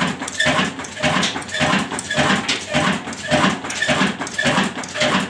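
Insaf Engineering Works (Daska) desi 'black' diesel engine running steadily at slow speed, its exhaust beating in an even rhythm of about two strokes a second.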